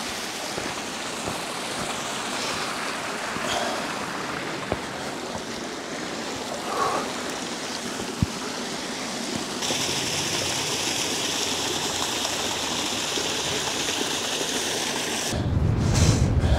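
Small moorland stream running over flat rock slabs, a steady rush of water. Near the end, a low rumble of wind on the microphone joins it.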